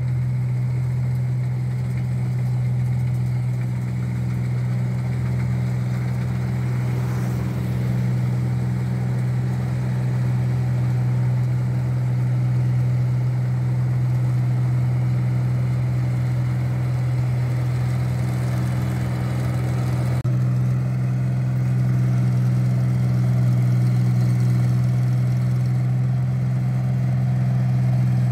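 Tracked rice combine harvester running steadily as it harvests, its engine and threshing machinery giving an unbroken low hum.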